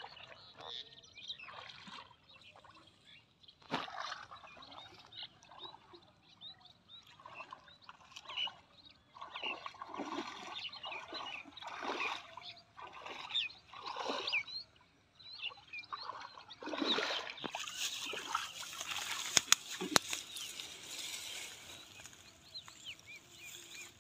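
Water splashing and sloshing in uneven bursts as a fine-mesh net is dragged by hand through shallow water, growing busier in the last third, with a couple of sharp knocks about three-quarters of the way through.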